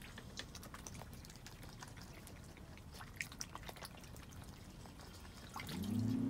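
Muscovy duck dabbling its bill in shallow pond water: faint scattered drips, small splashes and bill clicks, the sharpest a little past the middle. Near the end a low steady hum comes in, rising briefly in pitch.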